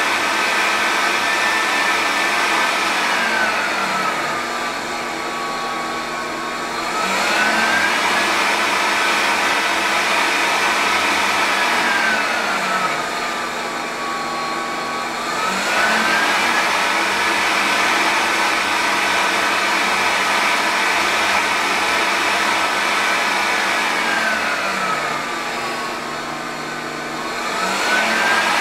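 Electric fan blowing air up a tall PVC tube with holes along it: a steady rush of air with a whine. Three times the fan slows, its whine falling and the rush softening for a few seconds, then speeds back up. These speed changes move the ball inside between its resting points at the holes.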